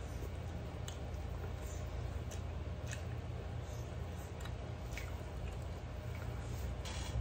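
Eating by hand: fingers squishing and working rice against a ceramic plate, with scattered soft clicks, over a steady low hum.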